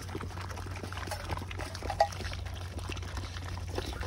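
Stray puppies eating wet canned dog food, a rapid patter of small wet chewing, smacking and lapping clicks, with one slightly sharper sound about two seconds in.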